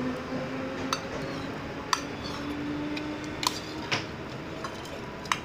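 Metal spoon stirring slime in a stainless steel bowl, clinking sharply against the bowl five times at uneven intervals.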